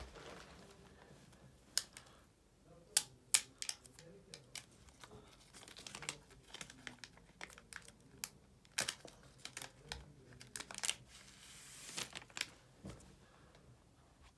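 Sealed iPhone 12 Pro box being opened by hand: its paper tear strips are pulled off, with the box rubbing and tapping as it is turned over. It comes through as irregular crinkling, crackles and sharp ticks, with a longer tearing sound about twelve seconds in.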